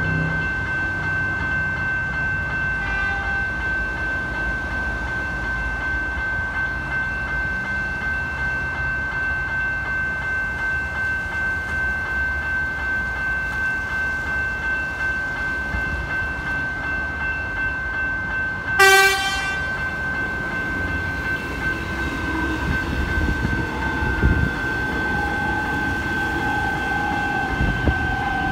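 Level crossing bell ringing steadily while the boom gates are down. About two-thirds of the way in an approaching Metro Melbourne X'Trapolis electric train sounds one short horn blast, and near the end its falling whine and rumble build as it reaches the crossing.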